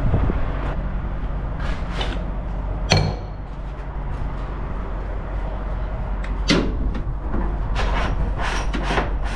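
Clunks and sharp metallic clicks from a diesel pump nozzle and hose being handled while refuelling a semi truck, with a strong clink just under three seconds in and several more near the end. Under them is the steady low rumble of the truck idling.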